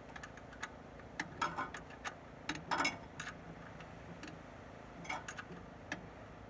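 Hand socket ratchet clicking in a few short, irregular bursts as a thermostat housing bolt is run in, over a faint steady hum.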